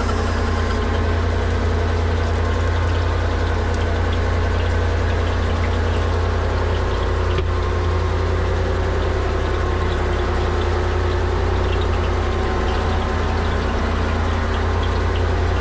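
Boat engine running steadily, a constant low drone with no change in speed.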